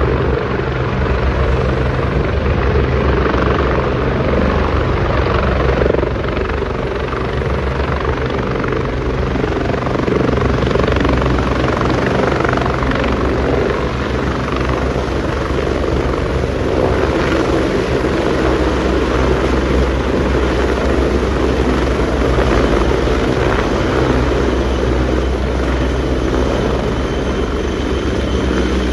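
Bell 430 helicopter running close by, hovering low over a helipad. Its main rotor and turbines make a steady, unbroken beat and rush.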